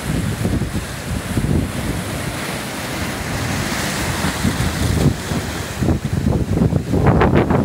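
Ocean surf breaking on a black lava-rock shore, a steady rushing hiss of foam that swells a few seconds in as a wave splashes over the rocks. Wind buffets the microphone throughout, most heavily near the end.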